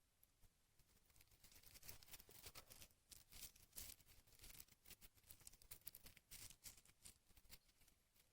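Faint, irregular dry crackling and rustling of dry plant material, many small clicks close together, thickest from about a second in until near the end.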